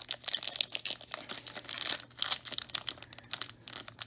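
A trading card pack's wrapper being torn open and crinkled in the hands, a dense run of irregular crackles.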